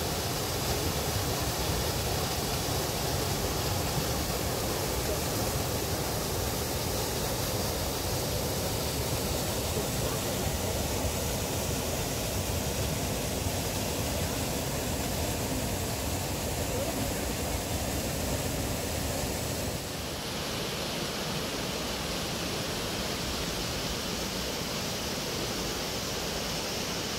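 Waterfall pouring into a pool: a steady rush of falling water. About twenty seconds in, it turns a little quieter and thinner.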